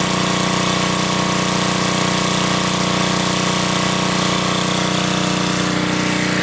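Small gasoline generator engine running steadily at a constant speed. It is being run to draw fresh gas into a carburetor that sat unused all winter.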